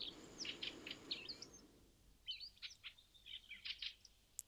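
Small songbirds chirping: quick, high chirps in two clusters, with a faint low rushing noise under the first second or so.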